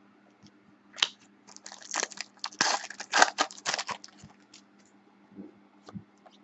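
Foil wrapper of a basketball trading-card pack crinkling as it is torn open by hand and the cards are pulled out. A dense run of sharp crackles lasts about three seconds, and a few light clicks of the cards being handled follow.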